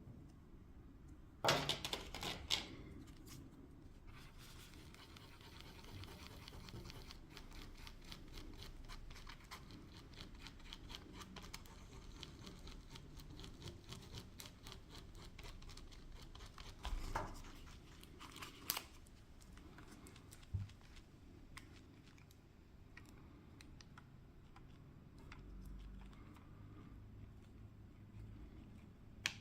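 Close-up handling noise from small hand work on a lens: a brief loud crinkling, tearing crackle about two seconds in, then faint scratching and rapid small clicks, with two more short crackles later on.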